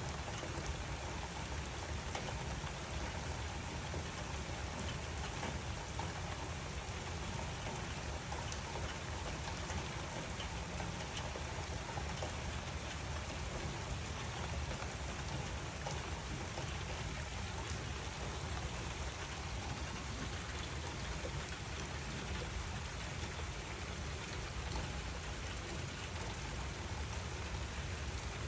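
Steady rain falling: an even hiss with scattered patter of drops on a surface.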